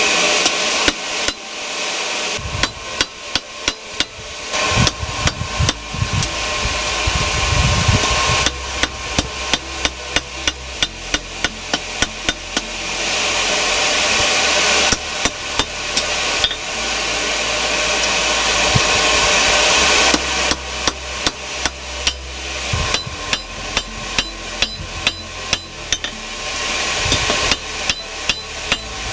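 Hand hammer striking hot steel on an anvil in several runs of rapid, evenly spaced blows, with short pauses between runs while a steady rushing noise swells.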